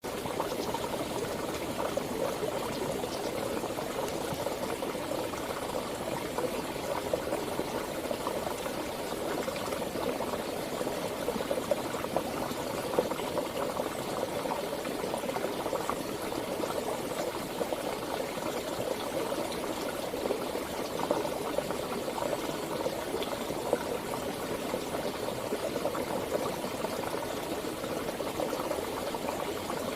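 Water flowing in a stream or river, a steady, even rush with constant small gurgles.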